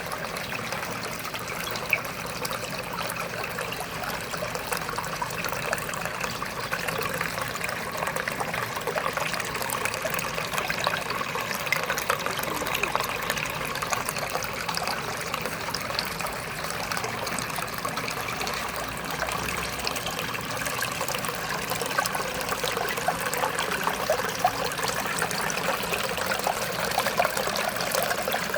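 Water trickling and bubbling steadily, with many small ticks and pops scattered through it.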